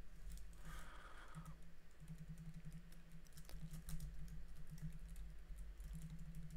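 Typing on a computer keyboard: faint, irregular key clicks while code is being edited.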